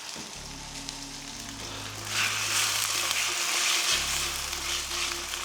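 Chicken strips frying in hot nut oil in a non-stick pan, a steady sizzle that grows louder about two seconds in.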